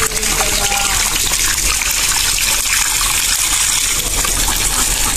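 Water gushing and splashing off a lift net as it is hauled up out of a pond, with a dense crackling patter of many small puti fish flipping in the shallow water of the net.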